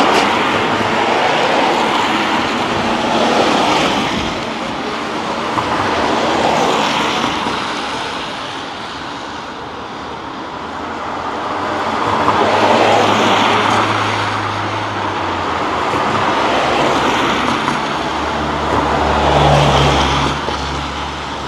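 Street traffic: cars passing one after another on a wet road, the tyre hiss swelling and fading every few seconds. A deeper engine hum from a heavier vehicle joins in the second half.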